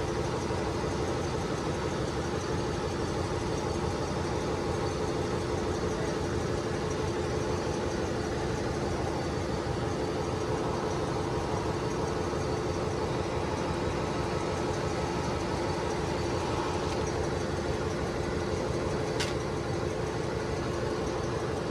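Steady drone of running ship's engine-room machinery, with steady hum tones and no change in pace. A brief sharp click comes near the end.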